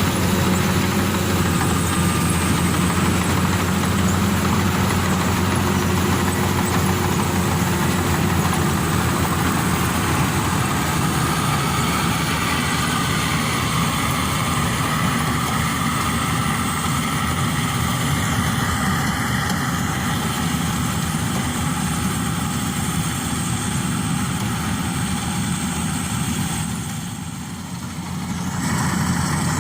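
Engine of a Maxxi Bimo Evo Xtreme combine harvester running steadily while harvesting rice, with a brief drop in level a couple of seconds before the end.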